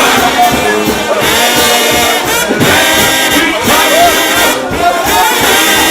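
A trombone-led shout band playing loud, dense brass music, with many notes bent and swooped in pitch.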